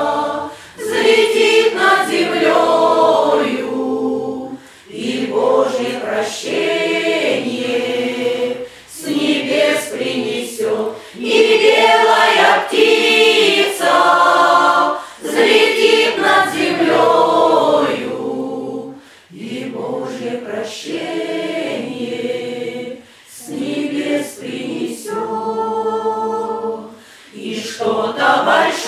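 Russian folk choir of mostly women's voices, with a couple of men, singing a song unaccompanied. The singing comes in phrases of a few seconds, with brief breaks between them.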